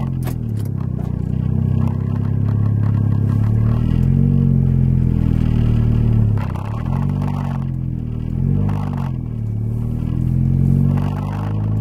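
Turbocharged car engine, boosted to 15 psi, accelerating hard at full throttle, heard inside the cabin. The revs climb and then drop back at each upshift, several times.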